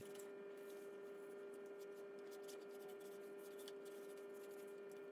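Very faint: a steady low hum, with a few soft scattered ticks and faint rubbing as a damp cloth is wiped over the Dyson V15 cordless vacuum's body.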